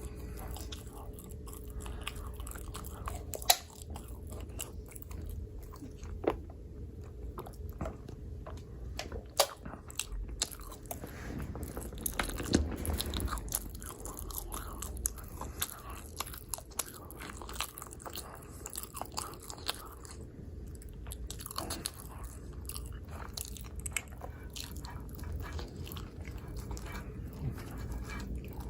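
A person biting and chewing pizza, with scattered sharp crunches among steady chewing.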